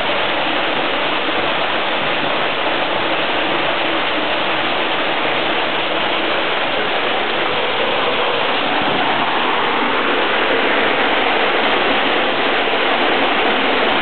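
A creek falling down a long chute inside a rock face and splashing hard at the bottom, a loud, steady rush of water.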